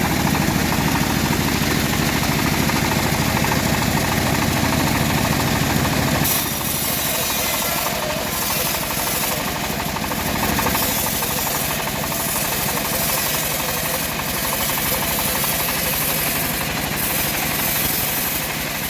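Engine-driven home-built bandsaw mill running steadily, sawing an old teak log. About six seconds in, the low rumble drops and a higher hiss grows stronger, flickering from then on.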